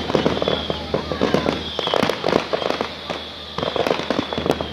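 Fireworks display: a rapid, irregular run of bangs and crackles from bursting shells, with a steady high tone and a low hum underneath.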